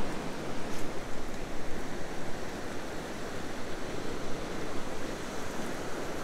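Surf washing against the rocks of a jetty: a steady rush of sea water.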